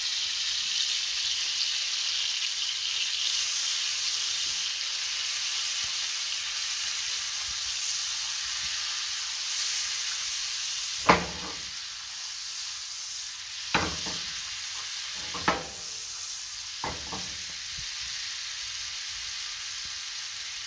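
Lemon butter sauce sizzling steadily in a frying pan as it is stirred with a wooden spoon. Four sharp knocks come a little past halfway, the first the loudest.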